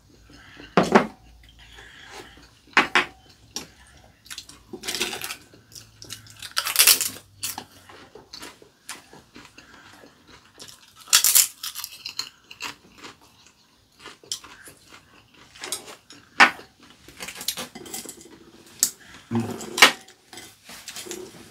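Table eating sounds: chopsticks and spoons clicking against ceramic bowls and plates, a mug set down on the table about a second in. Between the clicks there is chewing, with louder crunches of fried kelp chips (dasima twigak).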